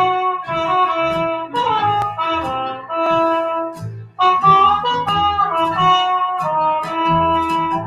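Trumpet playing a slow jazz melody in held notes, with a short break about four seconds in, over a quieter accompaniment underneath.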